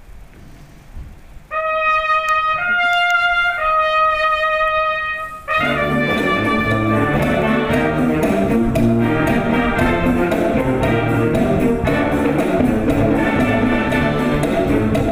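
Background music: a solo brass instrument holds three long notes, then about five seconds in a full band or orchestra comes in with bass and keeps playing.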